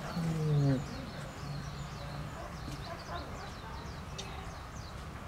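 A voice sounding once, falling in pitch, in the first second, then fainter, with small birds chirping high and intermittently in the background throughout.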